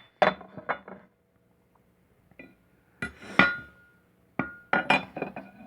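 Light metallic clinks and knocks as a square is set against a planer blade in its sharpening jig. There is a cluster just after the start, another about three seconds in with a short ring, and a quick run of taps near the end.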